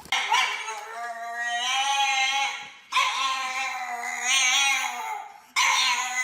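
Dog howling and whining in long, drawn-out, wavering calls: two of about two and a half seconds each, then a third that starts suddenly near the end.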